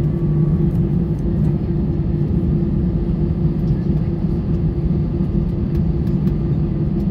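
Airbus A320 cabin during taxi: the engines running at idle as a steady low rumble with a constant hum.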